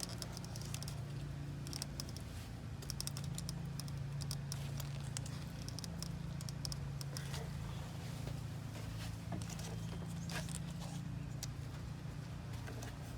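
Small clicks and rustles of hands twisting stripped copper wire ends together, over a steady low hum.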